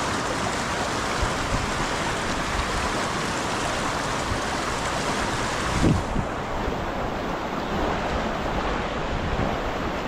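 Rushing stream water, a steady hiss, with one short low thump about six seconds in.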